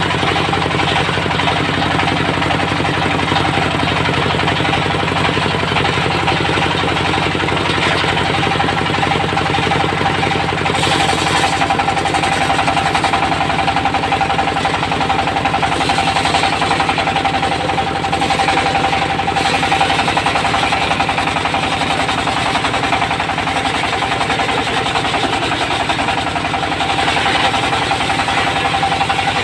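Diesel-driven circular sawmill running steadily, sawing teak into door-frame stock, with the engine's rapid even beat under the loud saw.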